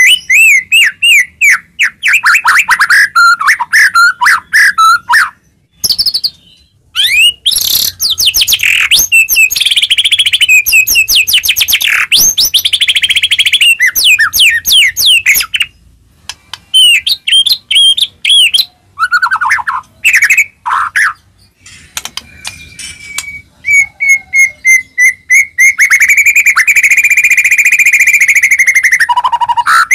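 White-rumped shama (murai batu) singing loudly: a varied run of rapid whistled notes, sweeping trills and chattering phrases broken by short pauses, ending with a long held trilling whistle. It is a lively, aggressive song of the kind played to goad other shamas into singing.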